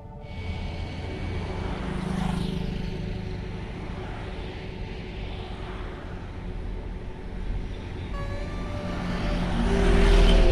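Road traffic noise with a steady low rumble, heard from a moving vehicle. Near the end a container lorry passes close alongside and its engine grows loudest.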